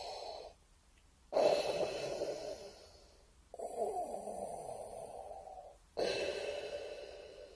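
Darth Vader's respirator breathing: slow, hissing mechanical breaths, roughly two seconds each with short pauses between, inhale and exhale alternating.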